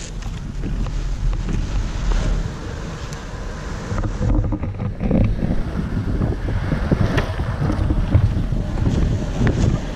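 Longboard wheels rolling over parking-lot asphalt: a steady low rumble, louder from about halfway, with wind buffeting the microphone.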